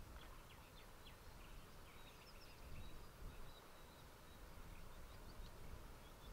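Faint bird chirps, a scattering of short high notes, over a low steady outdoor rumble.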